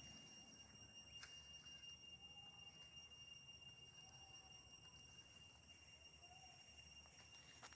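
Near silence, with a faint steady high-pitched tone throughout and a couple of faint clicks.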